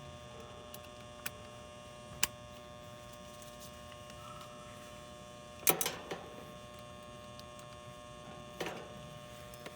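Steady electrical buzz from the AC condenser's pulled-in contactor. Over it come a few sharp metallic clicks, with the loudest clatter of metal parts a little past halfway and another near the end, as a capacitor bracket is being fitted.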